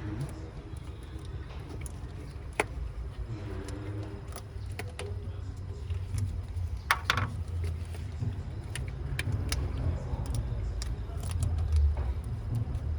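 Scattered metallic clinks and clicks of tools and fasteners being handled while the starter's cable is connected, the loudest cluster about seven seconds in, over a steady low rumble.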